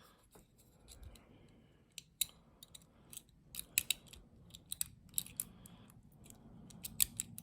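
Snowman lock pick working the pins of a small Yale padlock under tension: irregular light metallic clicks and scrapes of the pick on the pins and the keyway.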